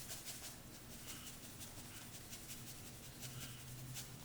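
Salt being sprinkled over raw chicken wings: a faint, light patter of many small ticks, with a low steady hum underneath.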